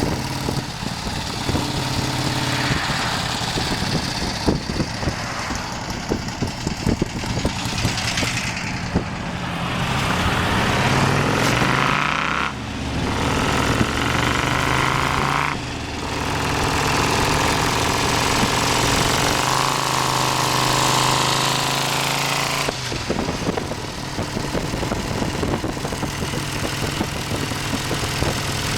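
An engine running at a steady idle, revved up a few times about halfway through, then held at a higher speed for several seconds before dropping back to idle.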